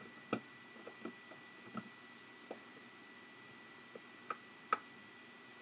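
Scattered light clicks and taps of plastic console parts and screws being handled while an Xbox 360 Slim is put back together, the loudest a sharp click near the end. A faint steady high whine and hiss run underneath.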